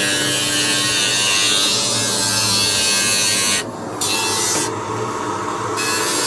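A small handheld electric power tool running, with a harsh grinding hiss over a steady motor hum. The hiss breaks off briefly about three and a half seconds in and again for about a second near five seconds.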